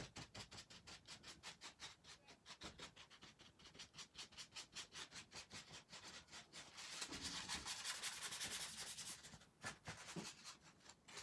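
A crumpled paper towel rubbed quickly back and forth over a paper journal page, wiping back excess wet spray paint. It goes in quick, even strokes, about five a second, growing louder for a couple of seconds past the middle.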